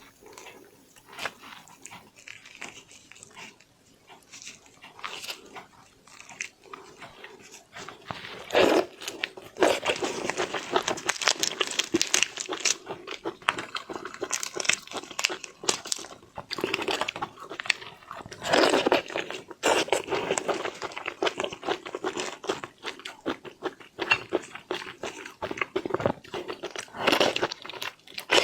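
Close-miked eating of raw marinated prawns: wet, irregular crunching and chewing. It is sparse and quieter at first, then grows loud and dense about eight seconds in.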